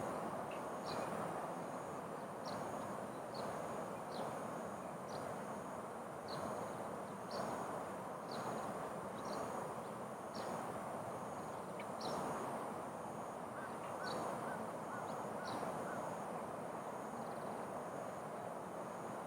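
Wild birds calling: short high chirps repeating every second or so over a steady background hiss.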